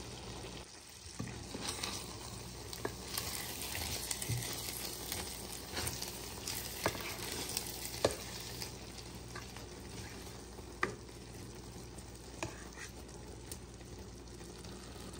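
A pot of Spanish rice simmering with a steady sizzle as its last water cooks off, while a spoon stirs it and clicks against the pot now and then.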